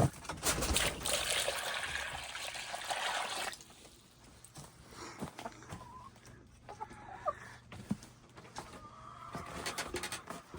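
Water pouring for about three and a half seconds, then a few quiet clucks from hens.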